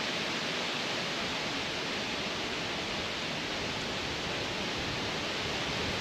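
A steady, even rushing noise, like moving water or wind, with no distinct events.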